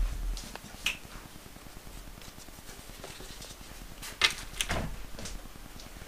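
Hands threading small plastic beads onto a strip of craft fabric at a table: a dull bump at the start, then a few sharp little clicks and taps, the loudest about four seconds in.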